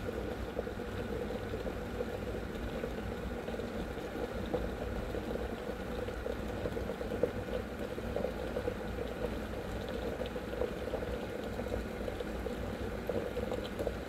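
Electric kettle at a full rolling boil: water bubbling steadily inside with steam venting, just short of its automatic shut-off.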